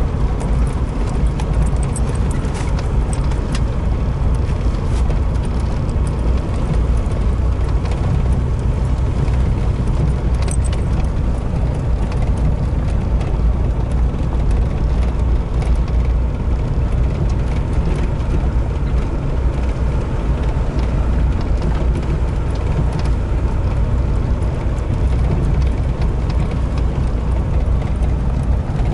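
Inside a vehicle's cab driving along a rough dirt track: a steady low rumble of engine and tyres, with small rattles and clicks from the cab throughout.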